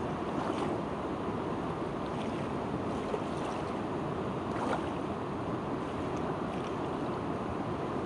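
Wide, fast-flowing river rushing steadily, with small splashes and laps of water now and then.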